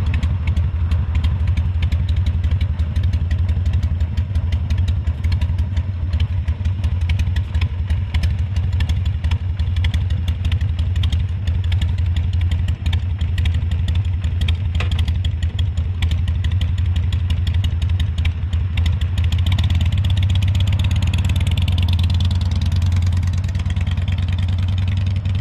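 Harley-Davidson Sportster's air-cooled V-twin running at idle with a fast, even low pulse. About twenty seconds in the engine note gains a harder edge as the bike pulls away.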